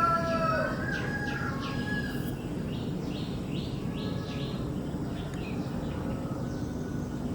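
A rooster's crow trailing off in the first second or two, followed by a small bird giving a quick run of short high chirps, over a steady low background rumble.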